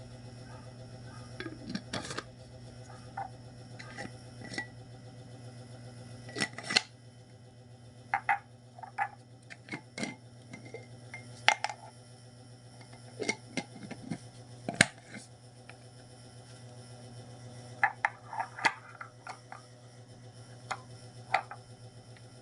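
Glass jars and their lids being handled: scattered sharp clicks, knocks and short clinks, some ringing briefly and coming in clusters, over a steady low hum.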